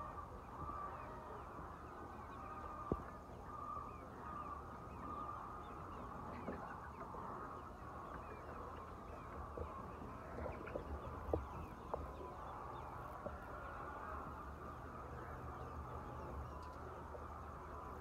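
A large flock of chickens clucking together: a steady din of many overlapping calls. A couple of brief sharp knocks stand out, one about three seconds in and a louder one past the middle.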